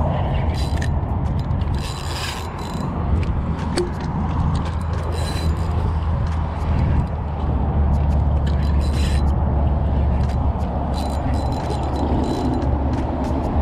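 Penn spinning reel being cranked to fight in a hooked red drum: a run of mechanical whirring and clicking from the reel's gearing, over a steady low rumble.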